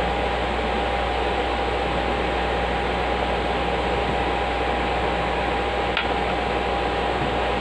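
Steady whir of electric fans on a repair bench, with a constant high whine and a low hum underneath; a light click about six seconds in.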